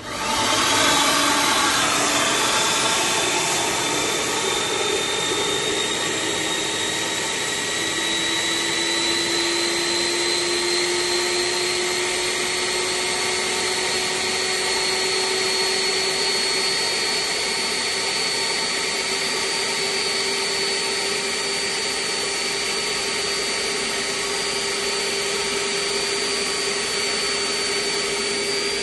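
Three-motor Freddy industrial vacuum cleaner switching on and running, with its inlet sealed on a suction gauge. It starts suddenly, and its whine rises slowly in pitch over the first several seconds as the motors spool up and draw the air out of the tank, then runs steadily.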